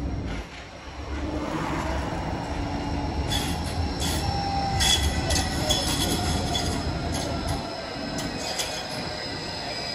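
Bombardier Flexity 2 light rail tram passing close by, its wheels and running gear rumbling on the track. From about three seconds in, high squealing tones and a few sharp clicks ride over the rumble. The low rumble drops away near the end as the tram moves off.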